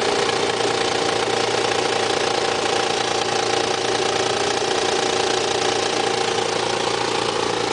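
Nissan 300ZX engine idling steadily with a knocking, tapping noise from a bad idler pulley on the accessory belt drive.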